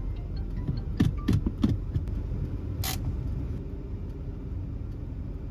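Low, steady rumble of a motor vehicle. There is a cluster of soft knocks between one and two seconds in and one short, sharp click near three seconds in.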